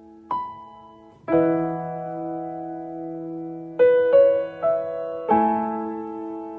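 Background music: slow piano notes and chords, each struck and left to ring out, with a quick run of three notes a little past the middle.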